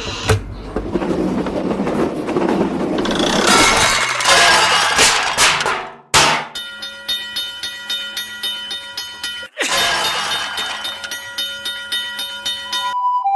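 A train rumbling past, then, after abrupt cuts, a railway crossing bell ringing: several steady tones clanging in a quick repeating pattern.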